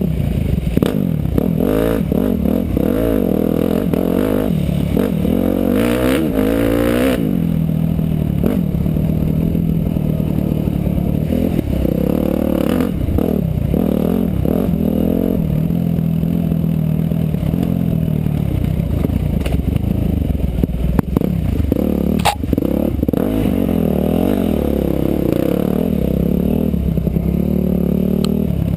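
Motorcycle engine running under way, its pitch rising and falling again and again as the throttle is opened and closed, with a sharp click about two-thirds of the way through.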